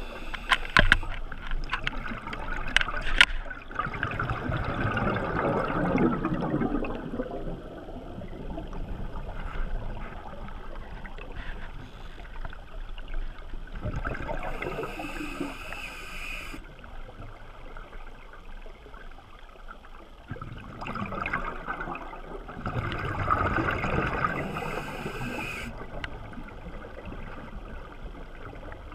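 Scuba diver breathing underwater through a regulator: bursts of exhaled bubbles gurgling, two of them with the hiss of an inhaled breath, several seconds apart. A few sharp clicks come in the first three seconds.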